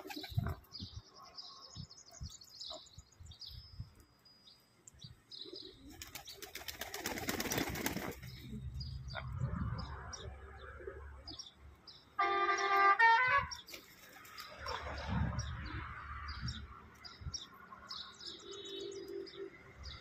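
Domestic pigeons flapping their wings as they flutter onto an outstretched hand of grain, with low cooing and small birds chirping. About twelve seconds in, a brief loud tone steps down in pitch.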